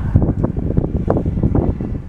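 Wind buffeting the microphone in irregular low thumps.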